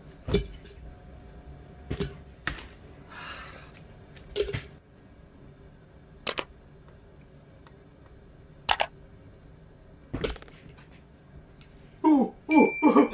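Snack packets and small items dropping one at a time into a glass jar: about seven sharp knocks and clinks at uneven intervals, with a rustle of plastic packaging after the third. A short run of pitched sounds rises and falls near the end.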